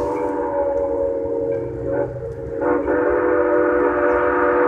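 Steam locomotive whistle sounding two long blasts, each a steady chord of several tones, with a short break between them, about two and a half seconds in.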